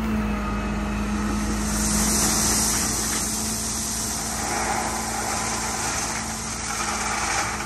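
Liebherr L 576 wheel loader's diesel engine running with a steady hum while it tips its bucket of crushed stone into a semi-tipper trailer. A rushing hiss of stones pouring into the body swells in the middle.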